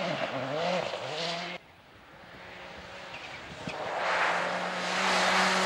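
Rally car engines on a snow stage. A Peugeot 206 WRC's engine revs up and down as it drives away, then cuts off abruptly about a second and a half in. A Ford Focus WRC then approaches at speed, its steady engine note growing loud under a rushing noise from tyres and thrown snow.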